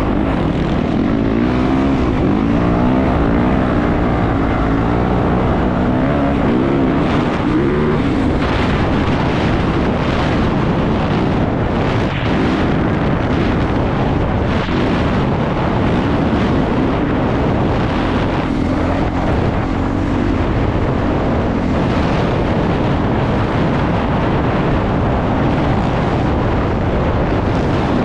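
A 450cc four-stroke dirt bike engine running under way, its note rising and falling with the throttle, over a steady rush of wind on the microphone.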